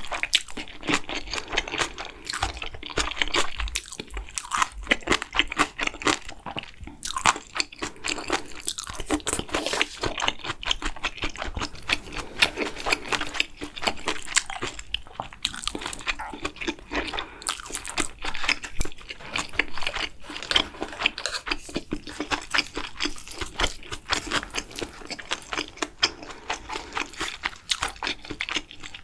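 A person chewing food close to the microphone: a continuous run of small sharp clicks and crunches, mouth-eating sounds with no pauses.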